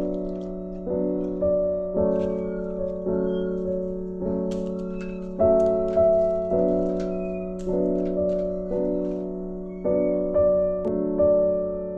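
Background music: slow struck chords, each fading before the next, roughly one a second.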